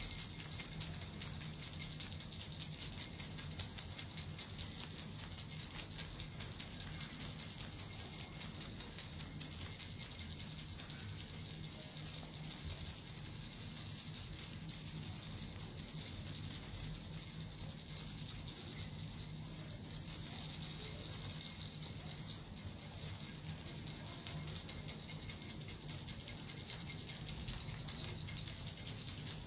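Small Japanese suzu bells and a metal rattle shaken continuously, giving a steady, unbroken high jingling.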